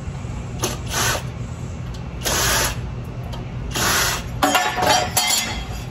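Cordless drill-driver spinning in about five short bursts, backing screws out of the sheet-metal cover on an air compressor's motor, with a longer, whinier run near the end.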